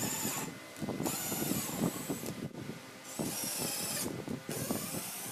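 Cordless drill-driver driving screws into a plywood frame. The motor whines in short runs of under a second to about a second, stopping and starting about four times, with a rough grinding of the bit and screw in the wood underneath.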